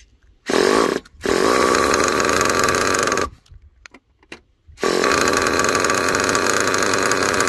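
Small nitro engine of an RC monster truck buzzing at a high, steady pitch as it is being started, in bursts that cut off abruptly: a short one about half a second in, a longer one of about two seconds, and another from about five seconds in.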